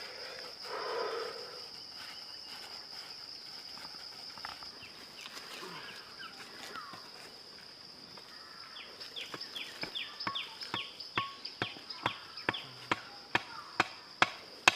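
Steady high drone of insects, with a short rustle near the start. Past the middle, a wooden club starts pounding a wooden stake into the ground: sharp knocks about three a second, growing louder.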